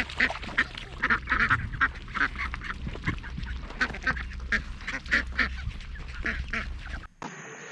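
A flock of ducks quacking, many short calls overlapping one after another over a low rumble, cutting off abruptly about seven seconds in.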